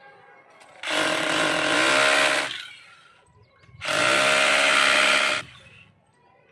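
Corded electric drill boring into a plastered masonry wall in two runs of about a second and a half each. The motor rises in pitch as it spins up at the start of each run.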